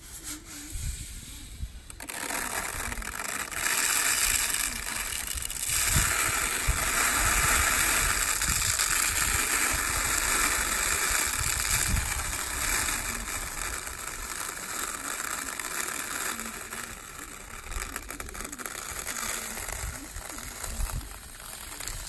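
Acacia lasiocalyx seed being poured from a height through the wind to winnow out leaves and chaff: a steady hissing patter of small hard seeds falling. It starts about two seconds in, grows louder, and thins out after about sixteen seconds, with wind buffeting the microphone underneath.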